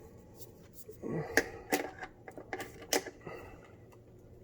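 A series of sharp clicks and snaps from a hand tool, about four or five of them over a couple of seconds, as the disposal's ground wire is cut to length.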